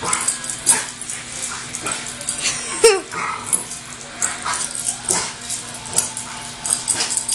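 Dog and cat play-fighting: a run of short scuffles and knocks with the dog's whimpers and yips, the loudest a brief wavering cry about three seconds in.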